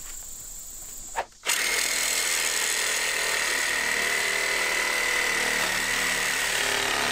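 A power tool such as a drill or power ratchet runs steadily with a high whine, starting about a second and a half in, spinning out steel bolts threaded into aluminum.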